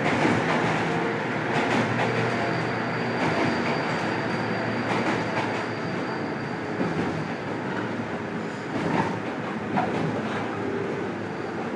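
JR Kyushu 103 series 1500-subseries electric train heard from inside its motor car while running: the traction motors hum, the hum dies away partway through, and the wheels click over rail joints.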